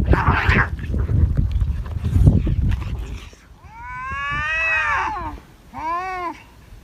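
Cats facing off: low thumping and rustling with a short hiss-like burst at the start, then a long drawn-out yowl that rises and falls, and a second, shorter yowl about six seconds in.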